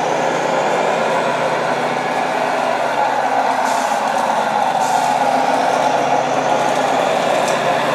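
Scale radio-controlled truck with a sound module playing a diesel engine running steadily. The engine note sinks a little about two-thirds of the way in, and there are short hisses near the middle and near the end.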